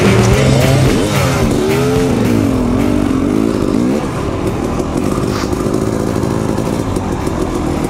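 Dirt bike engine revving up and down as the rider works the throttle, then settling to a steadier pitch about halfway through.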